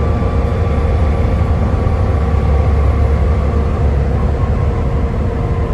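Volvo B7TL double-decker bus engine running under way, a heavy steady low rumble with steady whines over it. A faint whine fades out about four seconds in.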